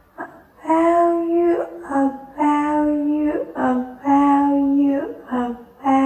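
A high voice sings "about you" over and over, each time a short note followed by a longer held note, about three and a half times.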